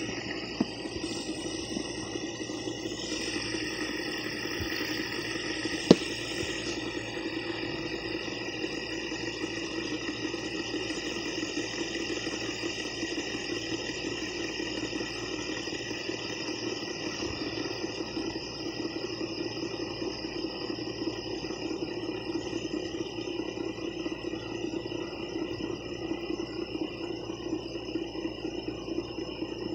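Fidget spinner whirring steadily as it spins on its bearing, lying flat on a hard surface, with one sharp click about six seconds in.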